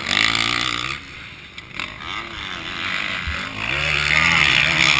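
Engine of a 2012 Kawasaki KX450F motocross bike, a four-stroke single, revving under throttle. It backs off about a second in and builds again toward the end.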